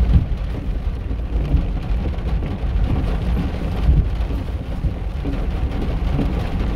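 Steady rain, under a heavy low rumble of road and traffic noise.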